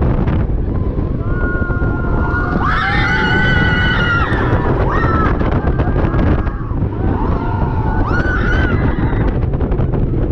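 Wind rushing hard over the microphone of a roller coaster moving at speed at night, with a steady low rumble. Riders scream in two long, held stretches, the first beginning about a second in and the second near the middle.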